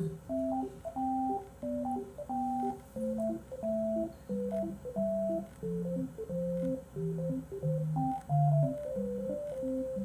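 Background music: a simple keyboard tune of short, evenly spaced notes over a bass line, about two to three notes a second.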